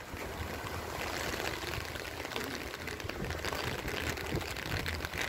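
Steady rain falling on a wet street, a dense patter of drops that gets a little heavier about a second in.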